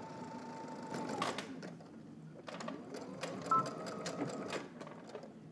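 Domestic sewing machine topstitching through layers of denim. It runs steadily, slows to a stop a little over a second in, then stitches again for about two seconds with some light clicks.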